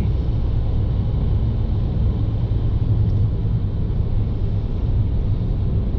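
Steady low rumble of a car driving at speed, heard inside the cabin: tyre and engine noise.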